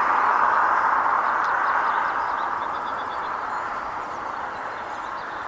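A passing vehicle's road noise as a steady rush that slowly fades away as it recedes, with faint bird chirps.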